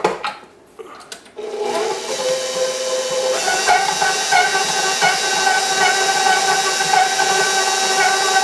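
KitchenAid Professional HD stand mixer switched on after a few clicks: the motor starts about a second and a half in and runs with a steady whine, growing louder over the next couple of seconds, as its flat beater creams butter, egg and icing sugar in the steel bowl.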